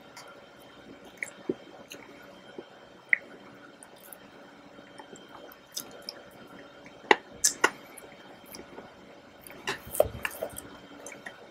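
Close-miked wet mouth sounds of eating soft chocolate raspberry mousse cake: lips smacking and squishing, with scattered sharp clicks and two louder flurries, about seven seconds in and again about ten seconds in.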